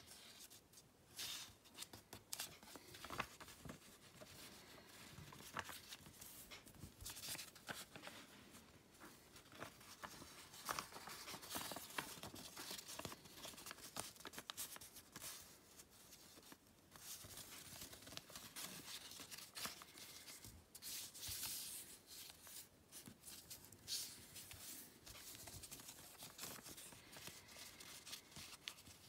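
Origami paper being folded and creased by hand: faint, irregular rustling and crinkling, with short sharp crackles as the folds are pressed flat.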